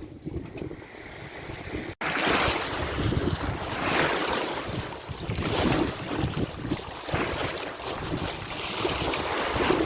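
Wind buffeting the microphone over water rushing and splashing along the hull of a sailboat under way. The sound cuts out for an instant about two seconds in, comes back louder, and then surges and eases every second or two.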